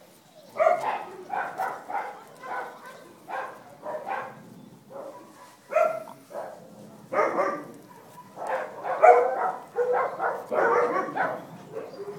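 Dachshunds yapping: a run of short, high-pitched barks and yips, one after another, crowding together in the second half.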